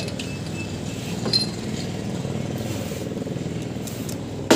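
Machinery running steadily with a low drone, under a light metallic clink about a second in and a sharper metal click near the end as engine bearing parts are handled.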